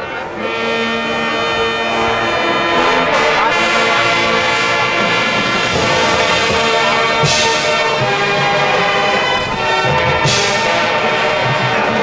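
High school marching band playing: the brass holds full sustained chords, with loud cymbal crashes about seven and ten seconds in.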